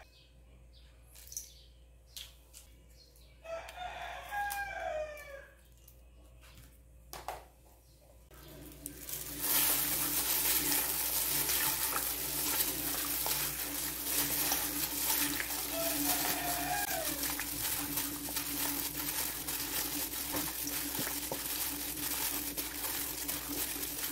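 A gloved hand mixing chicken pieces and kalamansi in a stainless steel bowl, a steady loud rustling and squishing that starts about nine seconds in; before it, only a few light taps. A rooster crows in the background about four seconds in, with a shorter call near the middle.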